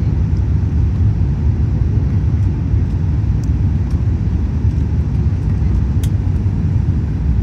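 Steady low rumble of a Boeing 787-9 airliner's cabin on approach, the engine and airflow noise as heard from a window seat.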